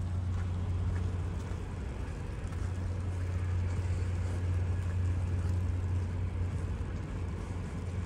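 Steady low rumble of distant motor noise, with a few faint light ticks now and then.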